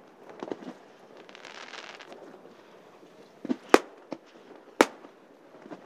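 Aerial fireworks shells bursting: scattered pops, a spell of crackling about a second in, then two loud bangs about a second apart past the middle.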